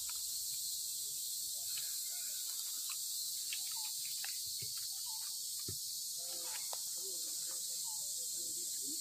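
Steady high-pitched drone of insects in the forest, with scattered short, faint chirps and squeaks over it.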